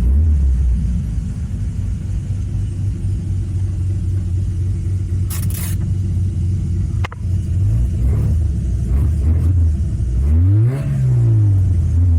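A 1974 Mazda rotary pickup's carbureted rotary engine idling steadily, revving up once and dropping back near the end. There is a short hiss about five seconds in and a single click about two seconds later.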